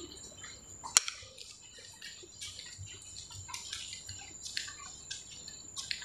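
Footsteps on a tiled walkway: light, irregular clicks, with one sharper click about a second in, over a steady high-pitched whine.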